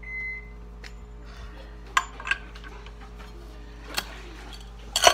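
Steel hand tools clinking against the snowmobile engine's clutch: a few sharp metallic clinks about two seconds in, another near four seconds and the loudest near the end, as a long-handled wrench works the bolt back in to press the clutch off its tapered shaft.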